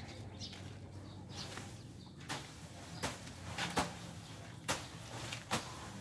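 A series of sharp knocks and clicks, roughly one a second, starting about two seconds in, over a low steady hum.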